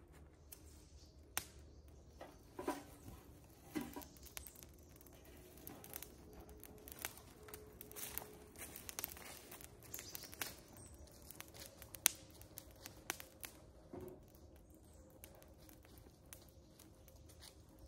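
Faint, irregular sharp clicks and crackles of a small wood fire burning in a fire bowl, mixed with rustling of dry leaves and twigs.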